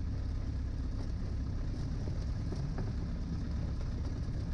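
Piper L-4 Cub's 65-horsepower engine running steadily at low power as the taildragger taxis.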